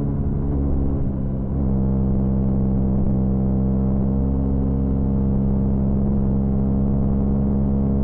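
Honda CB125R's single-cylinder 125 cc four-stroke engine running under way. The note dips and changes pitch briefly in the first second and a half, then holds a steady pitch.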